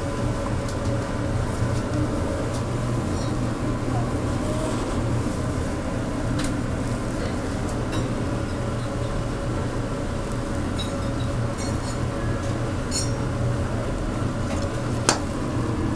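Steady indoor room noise with a constant low hum, broken by a few sharp clicks, the loudest near the end.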